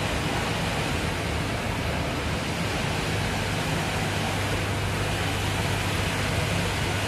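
Steady rushing air noise with a low motor hum underneath: a motor-driven fan running.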